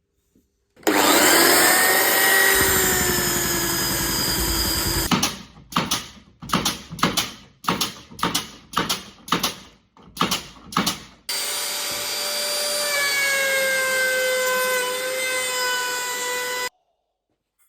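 A power tool working wood. It starts about a second in and runs steadily, then gives about ten short bursts, roughly two a second. It runs steadily again and cuts off sharply near the end.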